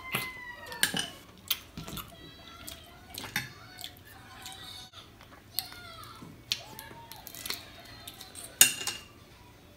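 Small sun-dried freshwater clam shells clicking and cracking as they are pried apart by hand and eaten. The clicks come every second or so, with the sharpest near the end.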